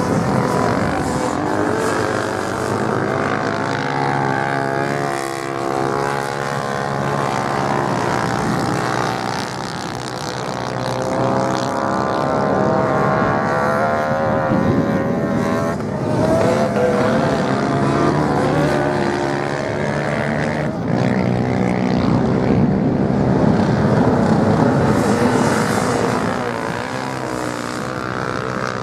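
Several off-road motorcycle engines racing on sand, overlapping, their pitch rising and falling as the bikes accelerate and slow round the corners.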